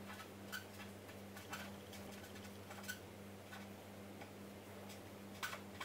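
Felt-tip marker writing on paper: faint soft ticks, roughly one a second, as the tip touches down for each stroke, over a steady low electrical hum.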